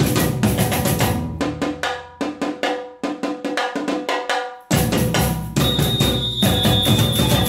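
Brazilian samba batucada percussion ensemble playing a fast, steady groove of deep bass drums under higher drums and bells. The deep drums drop out about two seconds in, leaving only the higher percussion, and come back in together near five seconds, with a high steady tone held over the last two seconds.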